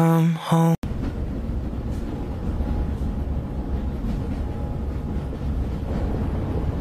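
Music cuts off abruptly less than a second in, giving way to a steady, low, rumbling noise like a moving vehicle.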